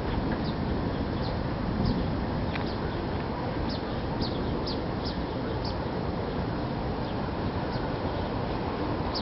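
Small birds chirping in short high notes, a dozen or so scattered through, over a steady low outdoor noise.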